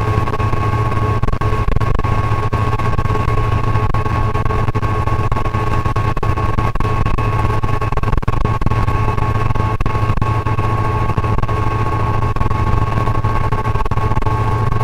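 Diesel freight locomotive heard from inside its cab while running along straight track at speed: a steady engine hum with steady high whining tones over rumbling wheel and rail noise.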